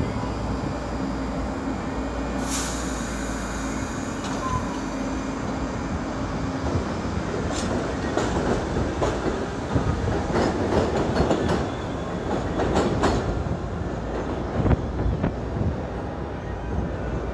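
New York City subway train running on the track with a steady rumble and hum. There is a brief sharp burst of noise about two and a half seconds in, then a run of clicking and clattering wheels over the rails from about eight to thirteen seconds in.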